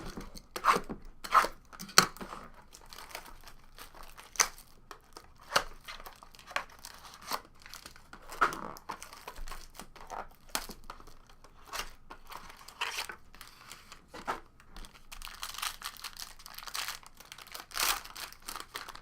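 Packaging of a sealed box of trading cards being torn open and crumpled: an irregular run of sharp crackles and rips, loudest near the start and again toward the end.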